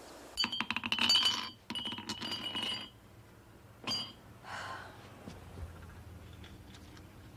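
Glass bottles and glasses on a drinks cart clinking against each other as they are handled: two runs of rapid ringing clinks, then a single clink about four seconds in.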